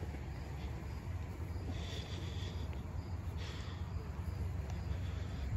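Quiet outdoor background noise: a low steady rumble with faint high insect chirps a couple of times.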